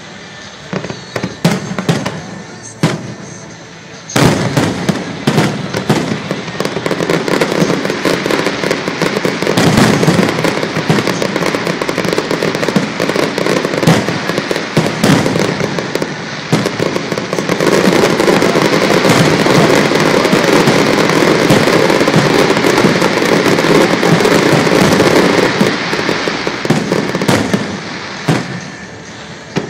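Fireworks display with aerial shells bursting. A few separate bangs at first, then from about four seconds in a dense, continuous barrage of rapid bangs, heaviest in the second half. It thins back to separate bangs near the end.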